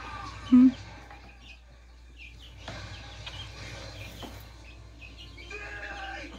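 Young chickens peeping and chirping in short, scattered high calls, with one brief loud low sound about half a second in.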